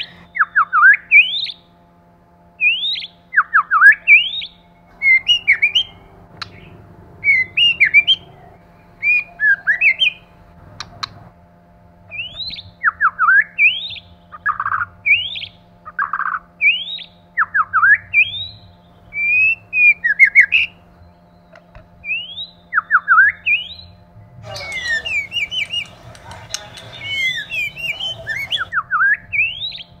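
White-rumped shama singing: a string of short whistled phrases, each a quick rising or falling sweep, coming every second or so, with a denser burst of mixed chattering notes about 25 seconds in.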